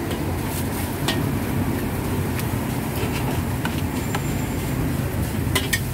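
Metal ladle and spatula clinking against steel woks, a scattering of sharp clinks with a cluster near the end, over a steady low rumble.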